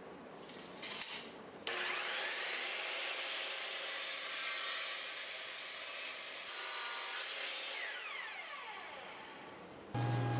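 An electric woodworking power tool switches on about two seconds in, its whine rising as the motor spins up. It runs steadily through the wood and then winds down with falling pitch. Near the end a second machine with a low steady hum starts up.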